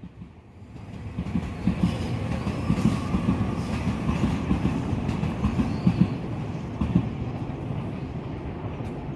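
Saikyo Line electric commuter train passing at close range, its wheels clacking over the rail joints. It builds up over the first second or so, then holds loud and steady with a run of rapid knocks.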